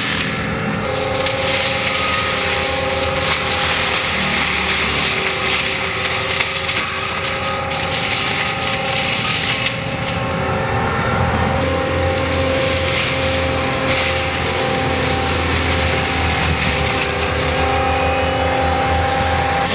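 ASV RT-135 compact track loader running a forestry mulcher head: the engine and spinning drum hold a steady pitch while the teeth grind and splinter wood. The grinding is strongest in the first half and eases about halfway through, leaving mostly the engine running.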